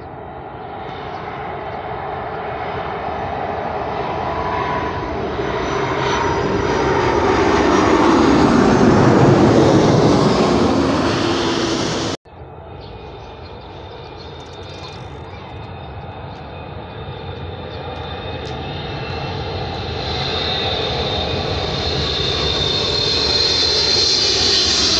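Jet engines of an Airbus A330-243 (Rolls-Royce Trent 700) on landing approach, growing louder as it passes low overhead, with a pitch that falls as it goes by. The sound cuts off abruptly about halfway through. Then a second wide-body twinjet on final approach is heard growing steadily louder, with a high steady whine.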